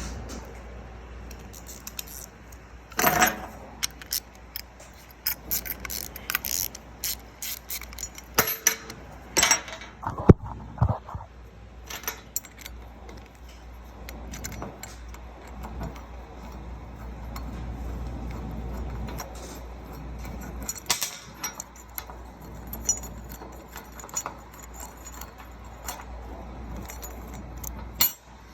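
Small metal hand tools and carburetor parts clinking and clicking, with scattered clatters, while a Tecumseh carburetor is being taken apart. A low steady hum runs underneath.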